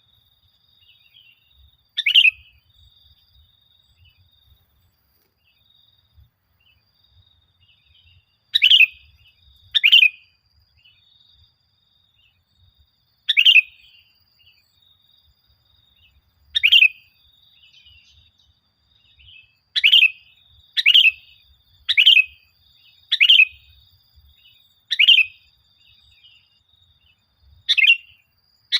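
Sooty-headed bulbul (kutilang) giving about eleven short, sharp falling calls at uneven intervals, sparse at first and then in a quick run about a second apart. A faint steady high-pitched tone runs underneath.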